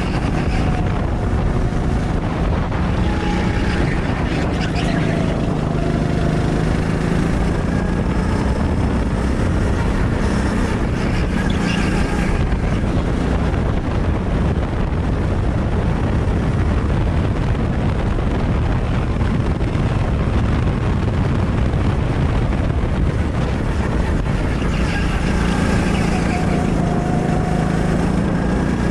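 Go-kart engine running hard, heard from the driver's seat, its pitch dipping and climbing as the kart slows for corners and accelerates out of them, with wind noise over it.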